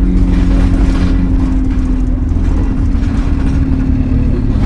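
Diesel bus engine running steadily, a continuous low drone with a held tone above it.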